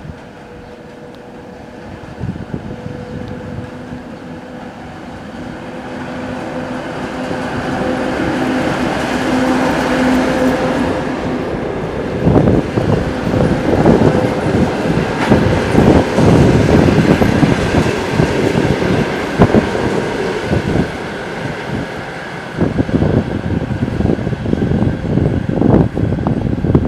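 TEP70BS passenger diesel locomotive approaching, its engine a steady drone that grows louder over the first ten seconds, then running past. The passenger cars follow with a loud, continuous clickety-clack of wheels over rail joints.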